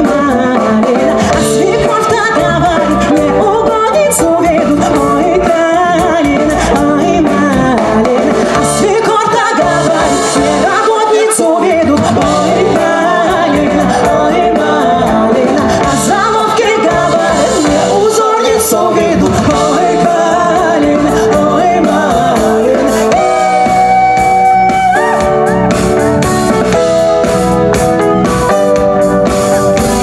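Live folk-fusion band playing, with singing over the instruments. About three-quarters of the way through, the voice gives way to an instrumental passage of held notes.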